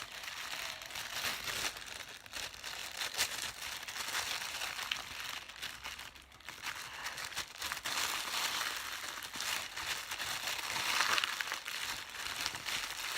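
Packaging of a mailed parcel crinkling and rustling as it is opened by hand, with many small sharp crackles throughout.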